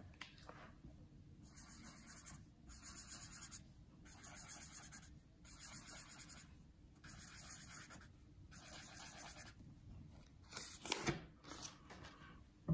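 Marker pen scribbling on paper in about six short spells, colouring in six dots, then a sharp knock about 11 seconds in.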